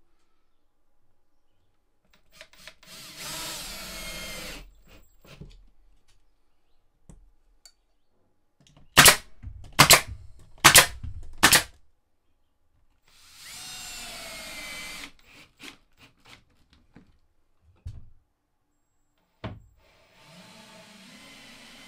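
Power drill running in two bursts of about a second and a half each, its pitch falling as it slows at the end of the second burst. Between the bursts come four loud, sharp knocks about a second apart, and a steady motor hum starts near the end.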